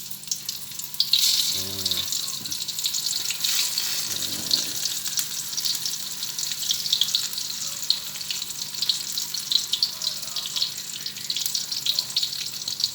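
Unbattered jackfruit pieces frying in hot oil: a steady crackling sizzle with many small sharp pops.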